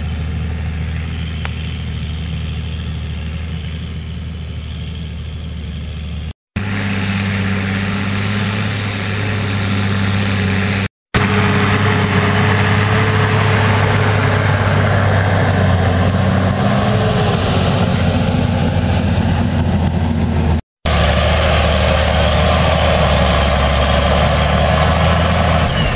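Fendt 930 Vario tractor's six-cylinder diesel engine running steadily under heavy load while pulling an eight-furrow plough through wet ground. The sound breaks off for an instant three times as the shots change, and is louder after the second break.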